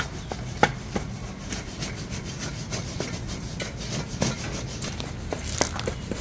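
Popped popcorn tumbling and rattling inside a lidded stainless-steel pot as the pot is shaken to coat the popcorn with cheese powder. It makes a continuous rustle with irregular clicks and knocks against the metal.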